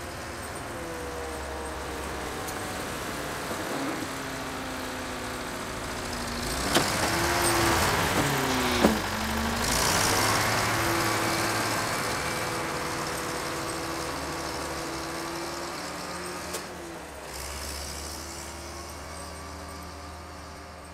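Volvo BM tractor's diesel engine running as the tractor drives past: it grows louder as it approaches, passes close with a few sharp knocks and a dip in engine pitch, then fades as it drives away.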